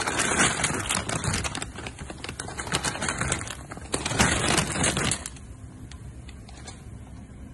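Dry pappardelle dropped from a plastic bag into a pot of water at a rolling boil: dense crackling and rustling for about five seconds, then quieter steady bubbling.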